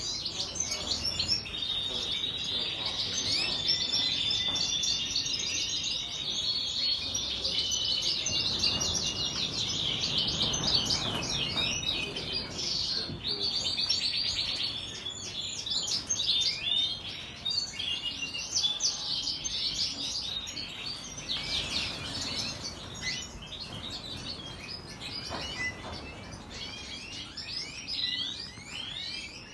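Many caged finches (goldfinches, canaries and mule hybrids) singing and twittering at once: dense overlapping chirps, whistles and trills, with a fast rattling trill about halfway through.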